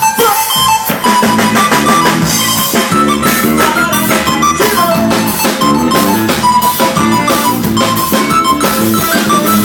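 Live band playing an instrumental passage, with the drum kit driving a steady beat under a melodic line.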